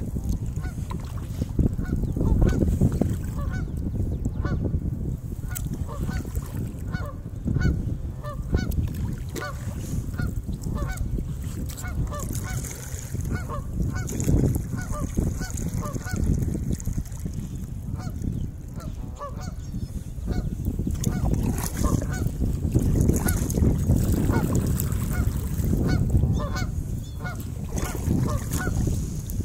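Many short honk-like animal calls repeating all through, over a steady low rumble of wind on the microphone.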